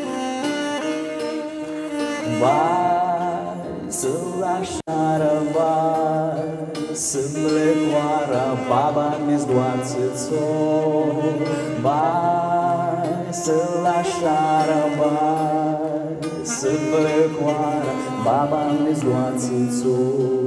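Alto saxophone playing a solo melody over strummed acoustic guitar in a live band, its notes often sliding up into pitch.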